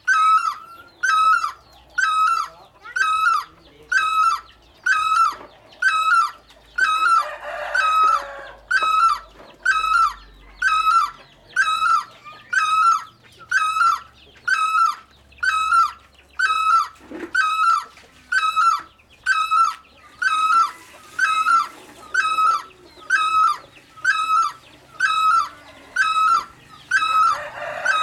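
Great barbet calling: one loud note repeated steadily without a break, about three notes every two seconds.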